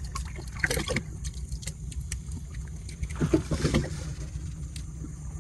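Shallow rock-pool water lapping and trickling over a steady low rumble, with light scattered clicks as a bamboo hook-stick pokes among the rocks.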